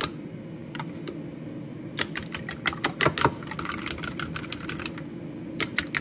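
Wooden chopsticks beating raw eggs in a bowl: quick, rapid clicks of the sticks against the bowl's side. The clicking pauses just after the start and picks up again about two seconds in and near the end.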